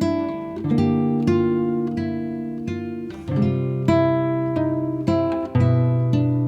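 Background music of a plucked acoustic guitar, picking notes and chords with a new one about every half second, each ringing and fading.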